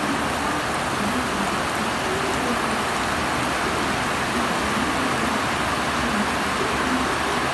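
Heavy rain pouring steadily, a tropical-storm downpour beating on surfaces as an even, unbroken hiss.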